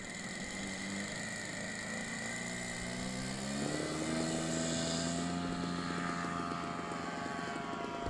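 Radio-controlled model Piper J3 Cub's motor and propeller running up for takeoff: a steady drone that rises in pitch about three and a half seconds in and holds at the higher speed.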